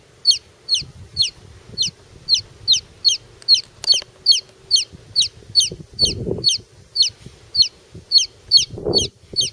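Baby chick peeping over and over, short high peeps that each fall in pitch, about two to three a second. Two brief low rumbles break in, about two-thirds through and near the end.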